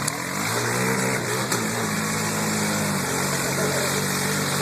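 ATV engine running, its pitch going up and down in the first couple of seconds, then holding steady.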